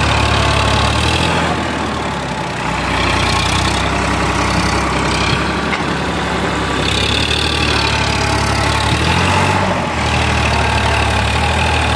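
Sonalika DI 45 RX tractor's diesel engine running steadily while pulling a loaded trolley over a sand heap; its note shifts a few times as the driver works the throttle.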